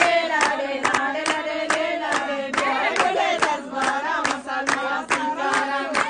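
Several voices singing a Balochi wedding song together over steady hand clapping, a little over two claps a second.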